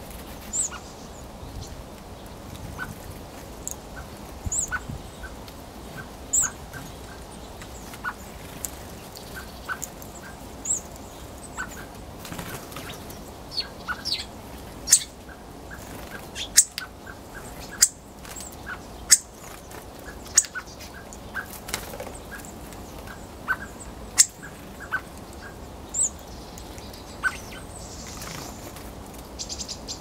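Hawfinch giving short, sharp, very high calls, repeated every second or so, mixed with quick lower ticks. Through the middle stretch come a series of sharp clicks, the loudest sounds.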